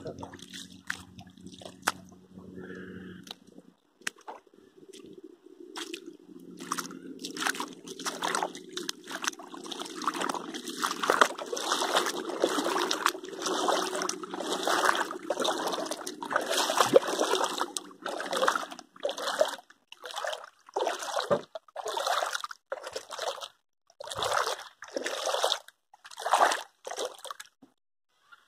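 Shallow muddy river water trickling and sloshing, with a run of short splashes about one or two a second.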